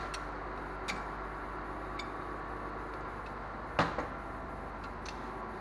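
Hand tools being handled: a few light metal clicks and one louder clank a little under four seconds in, over a steady low hum.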